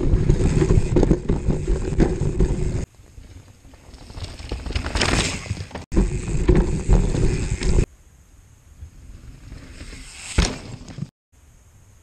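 Santa Cruz Bronson mountain bike ridden fast down a dirt forest trail, heard from a camera on the bike: tyres rumbling over the ground with wind on the microphone and frame rattle. It breaks off twice into quieter stretches where a rider rushes past, about five and about ten and a half seconds in.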